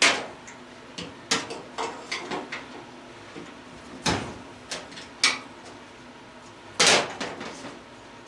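Irregular sharp metal knocks and clanks, about seven of them, as hand tools work on the steel and brass gas fittings of an old gas stove being stripped for scrap. The loudest come right at the start and about seven seconds in.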